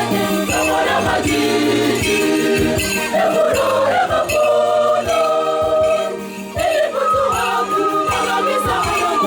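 Church choir singing a hymn in several-part harmony over a steady percussion beat, with a long held high note near the end.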